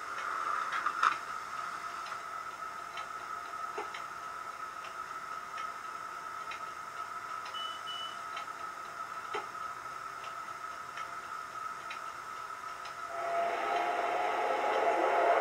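Hornby APT model's DCC sound decoder playing stationary electric power-car sounds through its loudspeaker: a steady whine with a light tick about once a second. About two seconds from the end, a louder, fuller hum with lower tones swells in.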